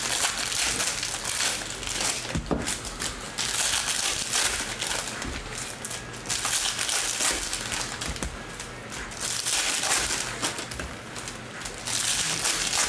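Foil trading-card pack wrappers being torn open and handled, crinkling and crackling in repeated bursts.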